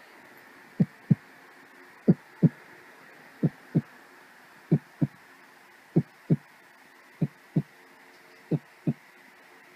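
Heartbeat sound effect: seven double low thumps, a beat and its quick echo-beat, repeating about every 1.3 seconds over a faint steady hiss.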